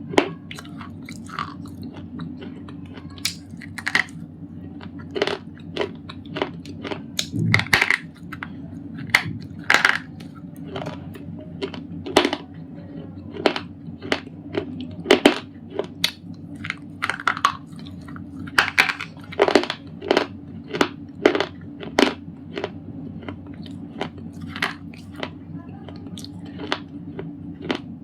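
Thick white slate pencil being bitten and chewed: many sharp, dry crunches at irregular intervals, some in quick clusters, over a steady low background hum.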